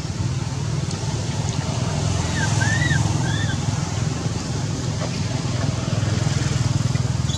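A steady low rumble throughout, with three short high chirps that rise and fall about two to three seconds in.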